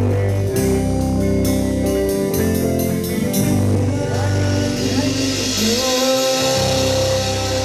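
A live band playing a song, with bass and drums under sustained melody notes. Sharp drum strikes in the first half give way to a bright cymbal wash about four seconds in.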